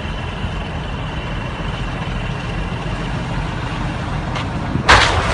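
A vehicle's engine running with a steady low rumble. Near the end a sudden loud rush of noise cuts in.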